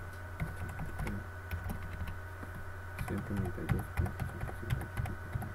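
Typing on a computer keyboard: a run of irregular key clicks as a web address is typed, over a steady low electrical hum.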